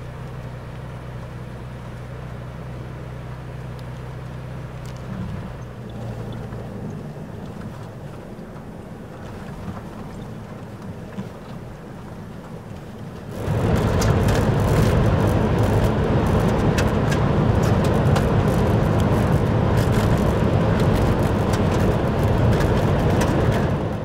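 Vehicle driving on an unpaved road. At first there is a steady engine hum. About halfway through, the sound switches suddenly to a much louder rush of tyre noise on gravel, full of small clicks.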